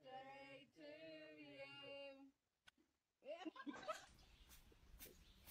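Voices singing in held notes. After a brief break comes a voice rising in pitch, then a run of sharp knocks and thumps.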